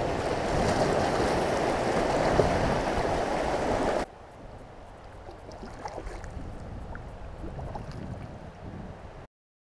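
Loud, steady rush of river water through a riffle, heard from an inflatable kayak. About four seconds in it cuts abruptly to a much quieter stretch of calm water with faint small splashes, and the sound stops altogether near the end.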